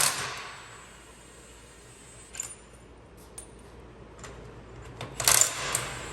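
Metal clinking and rattling as steel parts and tools are handled. A rattle dies away at the start, a few light clicks follow, and a louder jangling rattle comes about five seconds in.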